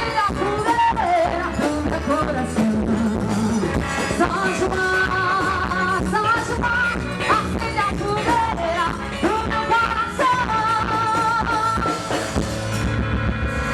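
Upbeat quadrilha junina dance music with a steady beat and a wavering melodic lead, with singing.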